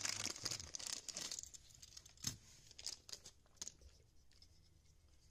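Clear plastic zip-lock bag crinkling as a small die-cast toy car is worked out of it, followed by a few separate light taps.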